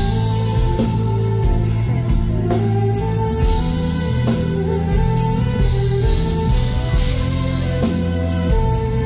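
Live band playing an instrumental passage of a pop-rock song, with a drum kit keeping the beat under held melodic notes.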